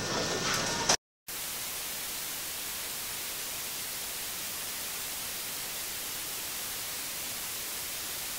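Steady, even hiss of blank tape noise, starting just after a brief dropout about a second in; before the dropout, a moment of outdoor noise with water from the previous shot.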